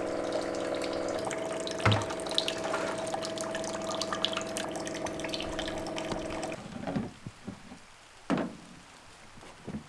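Maple-sap reverse osmosis bucket running: its pump hums steadily while liquid trickles and drips from its outlet hoses, with a single knock about two seconds in. The hum and flow cut off abruptly about two-thirds of the way through, leaving only faint scattered ticks.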